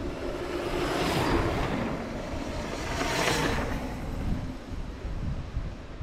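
Wind rushing over the microphone of a mountain biker's onboard camera, over a steady low rumble of the bike rolling along the trail; the rush swells twice, about one and three seconds in.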